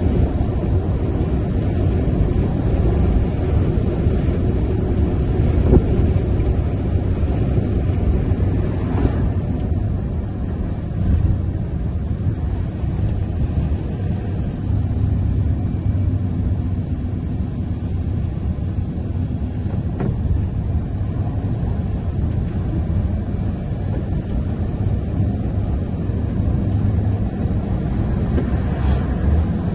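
Tipper truck's diesel engine and tyres on the road, running steadily: a low rumble while driving.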